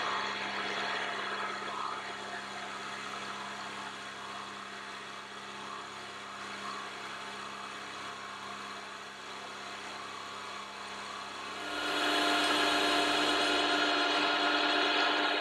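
Milling machine running with a solid carbide end mill side-milling the cast-iron base of a spin indexer. The cut is a steady whirring and hiss, and it grows louder, with a higher steady whine, about twelve seconds in.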